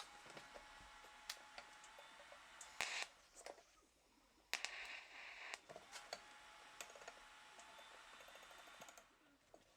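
TIG welder tacking a stainless-steel tube frame: two faint tack welds, each a short hiss followed by a few seconds of steady faint whine, with scattered clicks.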